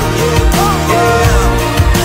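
Background music: a pop song with sustained bass notes and a drum beat.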